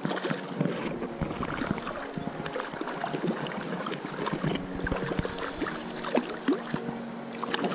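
A hooked trout splashing and thrashing at the surface of a shallow stream as it is played in, in many short, irregular splashes over the steady rush of the stream.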